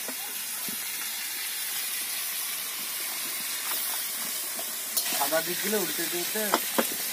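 Sliced vegetables sizzling steadily in hot oil in a wok. About two thirds of the way in, a metal spatula starts scraping and knocking against the pan, and voices join near the end.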